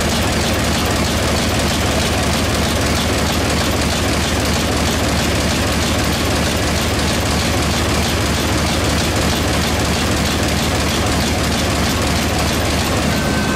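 MAN S6V35 six-cylinder submarine diesel engine of 1917 running steadily: a deep, even rumble with a fast, regular beat over it.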